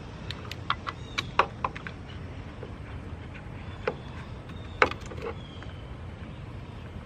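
Scattered sharp clicks and taps of parts being handled by hand in a car's engine bay: a quick run of clicks in the first second and a half, then two more around four and five seconds in, the second the loudest, over a low steady rumble.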